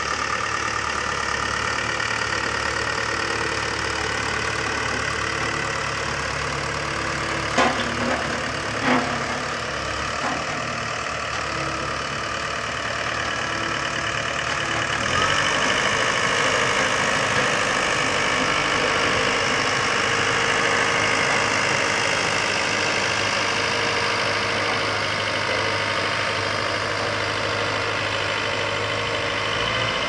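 Single-drum road roller's diesel engine running steadily at idle, with two sharp knocks close together a quarter of the way in; the engine sound shifts about halfway through.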